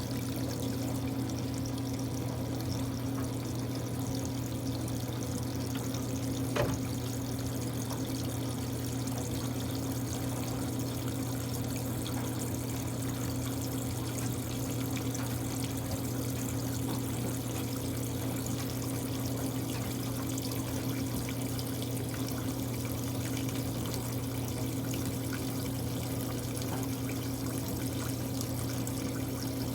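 Water running steadily into the tub of a Kuppet portable washing machine as it is filled for a rinse, over a constant low hum. A single short click about six and a half seconds in.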